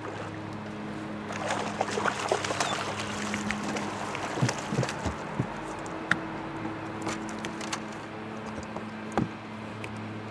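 Water splashing at the boat as a hooked bass is reeled in and landed, with several sharp knocks against the boat, over a steady low hum.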